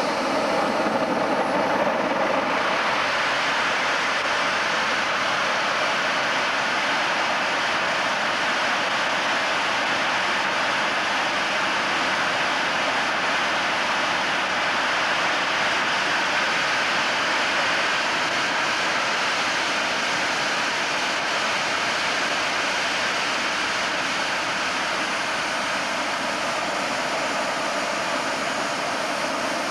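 Simjet 1200 model jet turbine (18 lb thrust) running on a test stand: a steady jet roar with a faint high-pitched whine over it.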